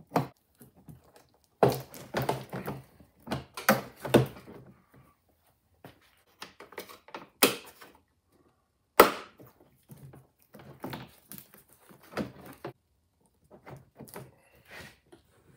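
Plastic cowl trim panel tabs and clips being pried and unhooked: irregular sharp snaps, clicks and knocks of hard plastic, in clusters with pauses, the loudest a single sharp snap about nine seconds in.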